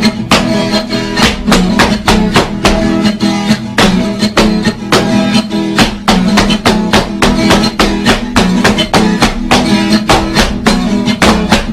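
Instrumental break in a sertanejo raiz song: acoustic guitars strummed in a steady, brisk rhythm, with no singing.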